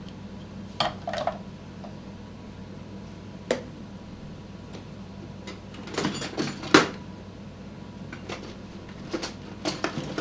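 Scattered metallic clinks and knocks of hand tools against the scooter's wheel rim: two about a second in, one near the middle, then a quick cluster about six seconds in and a few more near the end. A steady low hum runs underneath.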